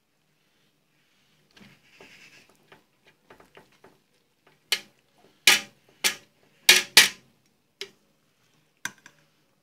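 Metal ladle working boiled rice in a large aluminium cooking pot: soft scraping at first, then five sharp metallic knocks of the ladle against the pot in quick succession around the middle, and two lighter taps near the end.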